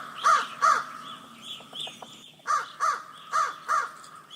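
Crow cawing: six loud, harsh caws in three pairs, with a pause of about a second and a half after the first pair.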